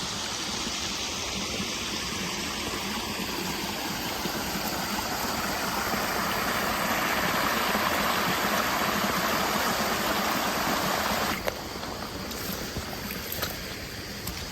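Fast-flowing floodwater from heavy rain rushing through a farm drainage canal. It is a steady rush that grows louder, then drops off suddenly about three-quarters of the way through.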